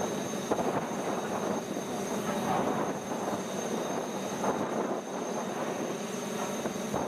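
Steady machinery drone with a thin, constant high whine above it, the running noise of a ferry's engines and ventilation fans heard from its deck.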